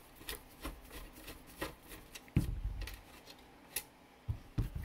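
Light clicks and scrapes of parts being handled while a Macintosh Classic is taken apart, with a dull thump about two and a half seconds in and a couple of knocks near the end.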